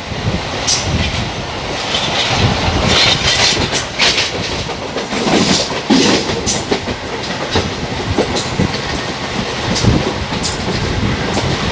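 A moving train running along the track, heard from aboard the carriage: a steady rumble of the wheels with irregular clattering knocks as they pass over rail joints.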